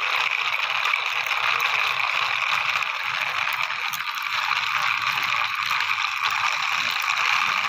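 Plastic toy tractor-dumper pushed by hand over rough concrete, its wheels and toy gearing giving a steady whirring rasp.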